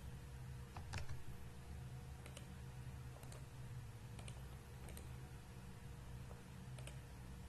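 Computer mouse button clicks, some single and some in quick press-and-release pairs, spaced about a second apart, the loudest about a second in; a steady low hum runs underneath.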